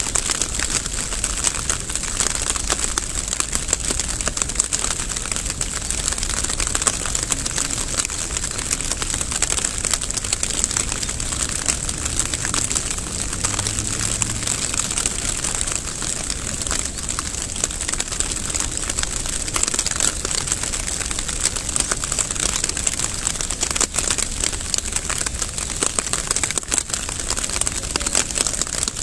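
Steady rain falling, a dense, even stream of fine drop ticks hitting nearby surfaces.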